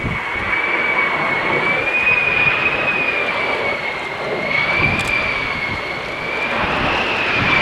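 F-35A Lightning II's Pratt & Whitney F135 jet engine running with a steady high whine that wavers slightly in pitch over a broad rush of jet noise.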